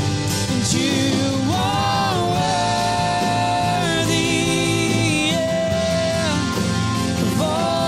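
Live worship band playing, with singing in long held notes over drums, guitar and keyboard.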